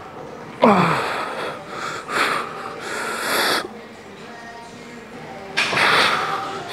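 A weightlifter straining through a heavy bench-press set. About half a second in there is a sharp grunt that falls steeply in pitch, then a string of loud, hissing exhalations, one per rep.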